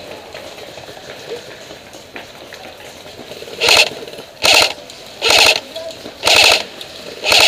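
AK-pattern airsoft electric rifle firing short full-auto bursts, each a quick rattle of shots, about one burst a second from about halfway through.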